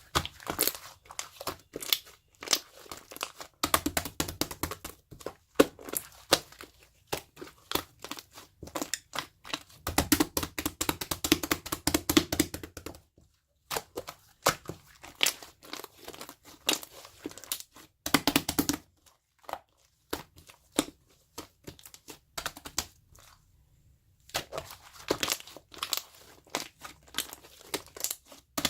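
Slime being squished and worked by hand, making dense sticky clicks and crackling pops in irregular bursts with short pauses between them.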